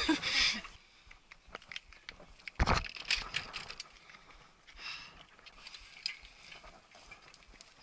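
Trek Superfly mountain bike being walked and lifted down a rocky trail: scattered clicks and rattles from the bike, with one heavy knock about two and a half seconds in.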